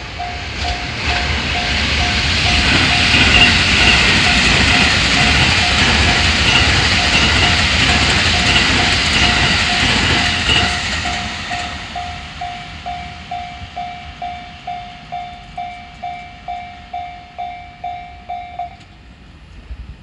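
Japanese railroad crossing warning bell clanging about twice a second while an electric train passes. The train's rumble and wheel noise swell in the first few seconds, drown the bell, and fade away by about twelve seconds in. The bell stops shortly before the end as the crossing clears.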